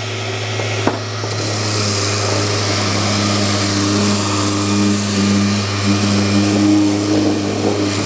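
A motor-driven machine running steadily with a low hum, its hiss growing louder about a second in; a single click just before that.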